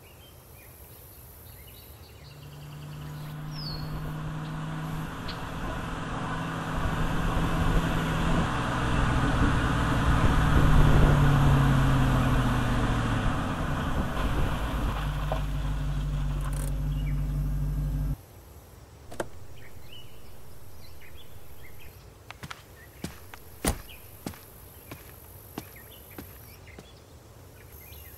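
A car driving up and running at a standstill, its engine note growing louder as it arrives and then cutting off suddenly when it is switched off. After that come a few sharp clicks and knocks.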